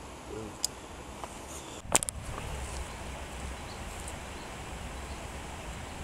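Lakeside outdoor ambience: a steady low wind rumble on the microphone, with a sharp click about two seconds in.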